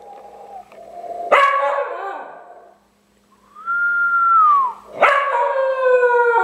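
American Eskimo dog howling twice, set off by a person's whistling: each howl starts suddenly and slides down in pitch over a second or two. Between the howls, a single held whistle that drops away at its end.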